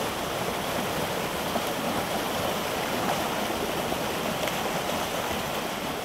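Steady rush of water churning out of a salmon hatchery's concrete outflow into a pool.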